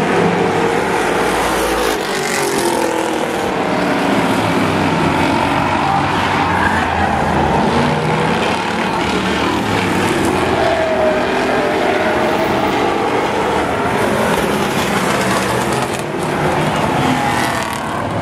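Several demolition race cars' engines running hard around a short oval, their pitch rising and falling as they rev, with tyres squealing as cars slide through the turn.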